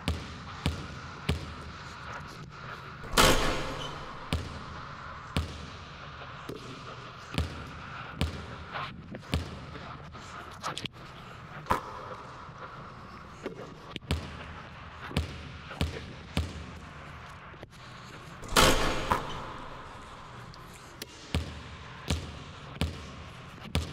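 Basketball bouncing on a hardwood gym floor in a run of dribbles, each bounce a sharp knock that echoes in the hall. Twice, about three seconds in and again near the last third, there is a much louder bang that rings on.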